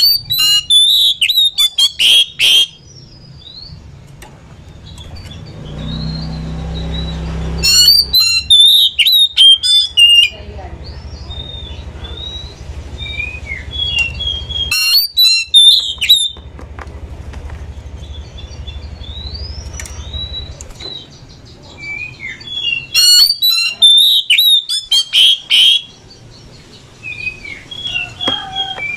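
Oriental magpie-robin (kacer) singing in four loud bursts of rapid, varied whistles and chatter, with softer single whistled notes between them. A low rumble runs under the song through the middle.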